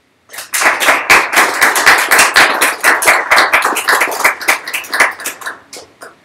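Audience applauding: many hands clapping at once, thinning out to a few scattered claps near the end.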